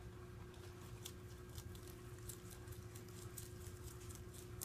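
Holland lop rabbit chewing leafy greens: faint, quick, crisp crunches, several a second and unevenly spaced, over a steady low hum.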